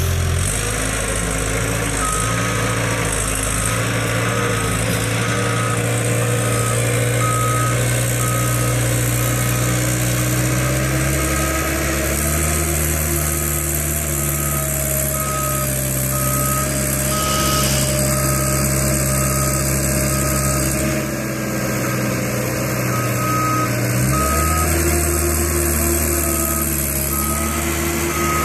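Caterpillar skid-steer loader's diesel engine running under load, its pitch shifting a couple of times as it works the slope. Its backup alarm beeps steadily, about one and a half beeps a second, from a couple of seconds in.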